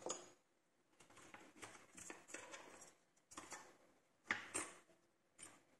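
Faint, irregular small clicks and scrapes from a Miwa U9 lock being handled, with a sharper click about four seconds in.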